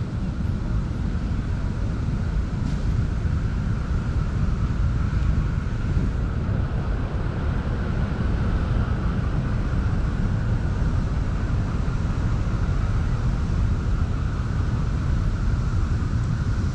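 Wind buffeting a GoPro action camera's microphone: a steady, uneven low rumble with a fainter hiss above it.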